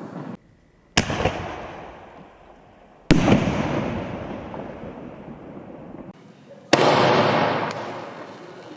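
Aerial firework shells bursting: three sharp bangs, about two and three and a half seconds apart, each trailing off in a fading noisy rumble.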